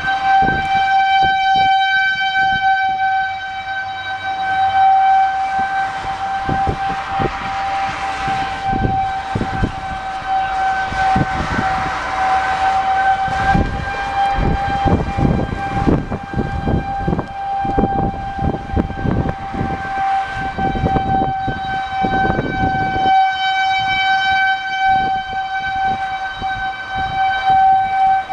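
Outdoor tornado warning siren sounding a single steady tone that holds its pitch, swelling and fading slightly in level, with gusts of wind rumbling on the microphone.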